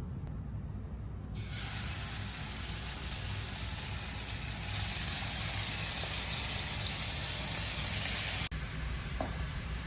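Kitchen tap running water, turned on about a second and a half in and shut off suddenly near the end, the hiss growing a little louder as it runs.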